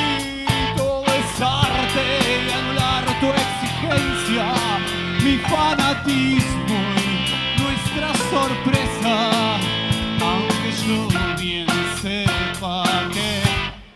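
A rock band playing live, with a male singer over a steady drum beat. The music cuts off near the end.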